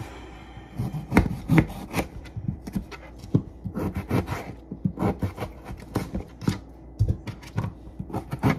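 Kitchen knife cutting potatoes on a cutting board: a run of irregular sharp knocks, about two or three a second, with some scraping between them.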